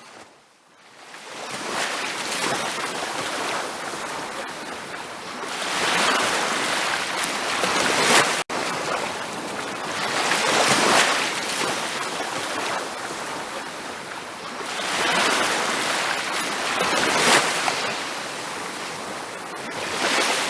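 Ocean surf on a beach: waves break and wash in, swelling and ebbing every four or five seconds. The sound drops out for an instant about eight seconds in.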